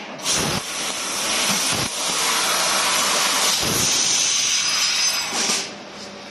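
Compressed-air assist gas hissing loudly through the cutting-head nozzle of a fiber laser cutter cutting sheet steel. The hiss comes on suddenly just after the start and cuts off sharply about five and a half seconds in.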